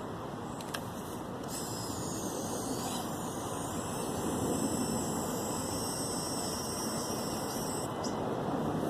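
High-pitched whine of a micro servo winch, a converted Redcat Sumo steering servo, reeling in line and pulling the small crawler up. The whine starts about a second and a half in and stops near the end, over a steady rushing noise.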